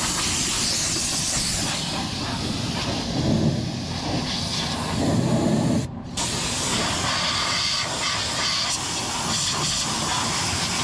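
Blower fan of a used oil-fired forced-air furnace running, a steady rush of air as it blows dust out of the unit; it sounds okay, with no screech. The sound drops out for an instant about six seconds in.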